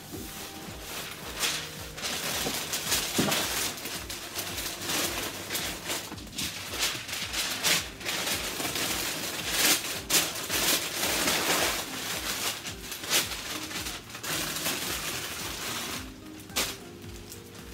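Wrapping paper rustling and crinkling in short bursts as a bouquet is wrapped by hand, over background music.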